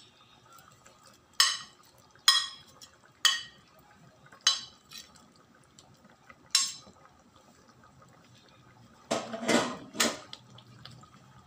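Metal utensils clinking against cookware: about six short, sharp, ringing clinks spread over the first seven seconds, then a metal ladle stirring through thick creamy stew and clattering against the stainless pot near the end.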